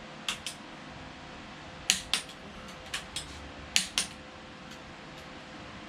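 Pittsburgh click-type torque wrench snapping over on an engine's rod bolts: four sharp double clicks, a second or so apart.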